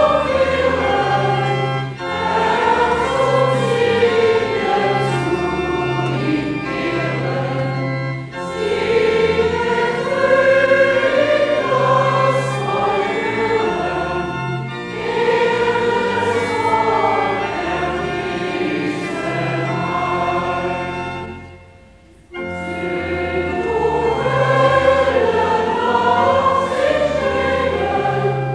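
Choir singing a hymn in long phrases, with short breaks between them and a brief pause about 22 seconds in.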